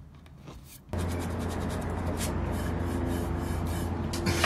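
Sandpaper wrapped over a broad knife rubbing back and forth along the edge of a rosewood veneer lid, in short irregular strokes that start after a quiet first second, over a steady low hum.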